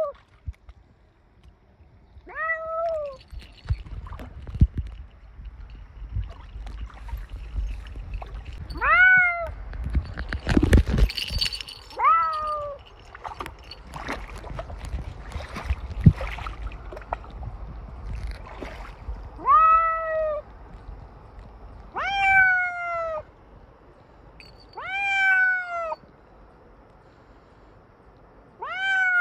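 A soaked cat meowing loudly again and again, about seven separate meows, each rising and then falling in pitch. Between them, mostly in the first half, comes splashing and sloshing water as it wades.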